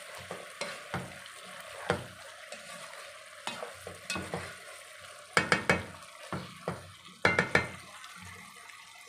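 White plastic ladle stirring a thick cooked vegetable curry in a coated pot, with soft scraping and light knocks against the pot. Sharper knocks come in a quick cluster a little past halfway and again about two seconds later.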